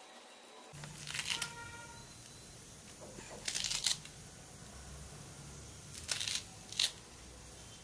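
Serrated kitchen knife cutting through a handful of fresh coriander held in the hand, in four short crisp bursts of slicing spread a second or two apart.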